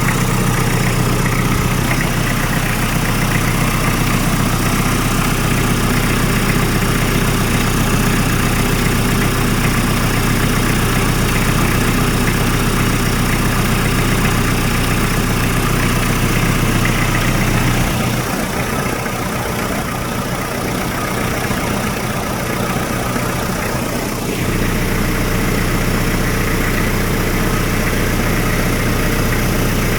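Hyundai D4BH 2.5-litre four-cylinder turbodiesel idling steadily while its oil pressure is checked. About eighteen seconds in, the deep part of the hum thins and the sound drops slightly for some six seconds, then returns.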